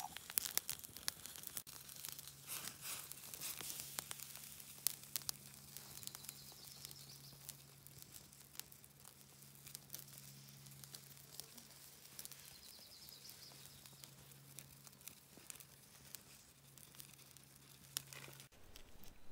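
Faint, irregular crackling and clicking, most likely a campfire burning under water being heated, over a low steady hum that cuts off suddenly near the end.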